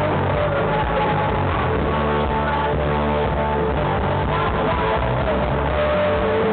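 Live rock band playing, electric guitar prominent over bass and drums, recorded loud and rough on a poor camera microphone.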